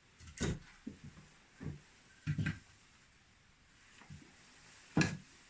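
Split firewood logs knocking against each other as they are laid one by one into a brick stove's firebox: about six irregular wooden knocks, the loudest near the end.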